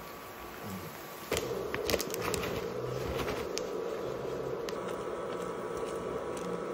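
Shredded fondue cheese poured from a paper pouch into an enamelled cast-iron pot, with light rustling and a few clicks, then stirred with a spatula. From about a second in, a steady low buzz runs underneath: the hum of a portable induction hob.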